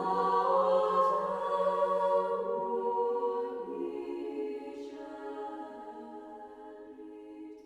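Church music of long held chords that shift a few times and slowly fade away.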